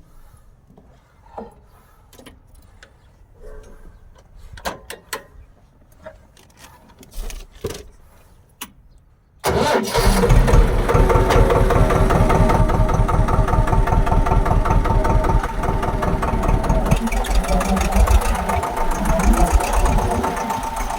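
A few scattered clicks and knocks, then about halfway through a tractor engine starts up abruptly and runs steadily with an even, rapid pulse.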